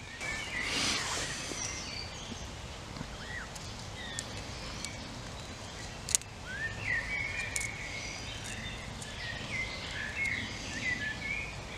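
Small birds singing in short, quick rising chirps over a steady outdoor background noise, the song growing busier in the second half. A single sharp click sounds about six seconds in.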